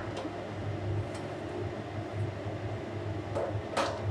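Steady low background hum, with a faint click about a second in and a sharp clink near the end as a steel spoon knocks the rim of a steel bowl while a boiled egg is set into the cold water.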